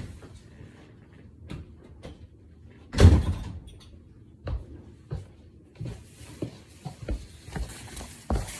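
Scattered household knocks and clatter, with one loud thump about three seconds in, like something shutting or being set down hard. Near the end there is cloth rustling close by as a jacket brushes past.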